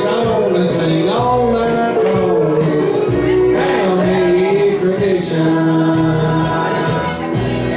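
A man singing a country song into a microphone over loud backing music, holding drawn-out notes.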